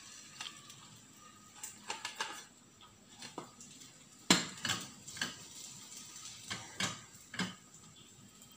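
Wooden spatula scraping and knocking against a metal wok as fried rice is stir-fried: irregular taps and scrapes, the loudest knock about four seconds in.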